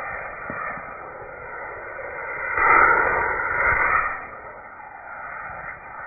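Diwali firework rockets taped to a toy tractor firing, a loud rushing burst that lasts about a second and a half, over a steady background noise.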